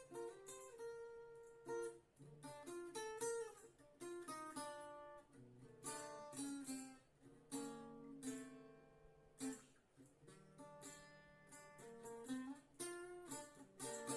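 Acoustic guitar playing a melody of plucked and strummed notes.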